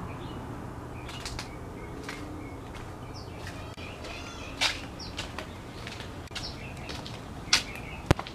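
Small birds chirping in short calls, with a brief trill about four seconds in, over a low steady hum. A few sharp clicks, about halfway and twice near the end, are the loudest sounds.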